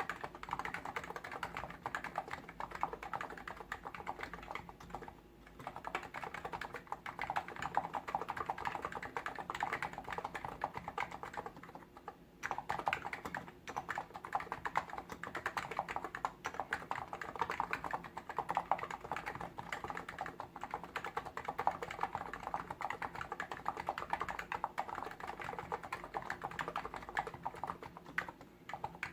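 Fast, continuous typing on a Hansung GTune CHL8 tenkeyless electro-capacitive keyboard, the keystrokes in a dense stream with short pauses about five and twelve seconds in.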